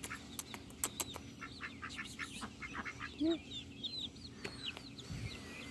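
Young poultry peeping and chirping in a quick, irregular run of short high calls. Scattered sharp clicks sound among them, and a single low cluck comes about three seconds in.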